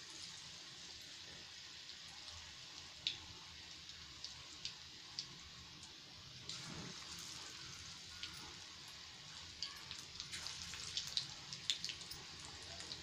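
Gram-flour-battered green chilli bhajias frying in oil in a steel kadhai on low heat: a faint steady sizzle with scattered sharp pops and crackles, which come thicker near the end.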